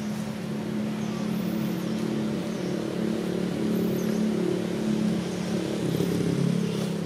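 An engine running steadily with a low, even hum that swells slightly in the middle.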